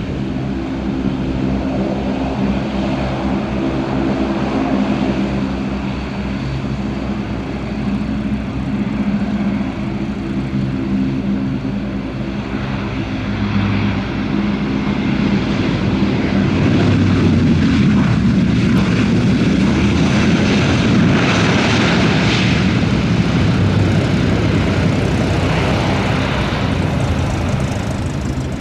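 De Havilland Canada Dash 8-400 turboprop engines and propellers: a steady drone with several held tones, giving way about halfway through to a louder, rougher propeller rush as one of the aircraft moves along the runway.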